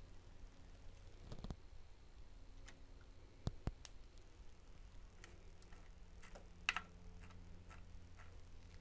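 Quiet room tone broken by a handful of faint, irregular clicks and taps, the clearest about three and a half and about six and a half seconds in.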